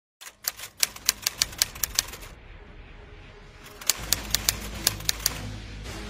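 Typewriter sound effect: two quick runs of sharp key clicks, about six a second. A low musical drone comes in near the middle, under the second run.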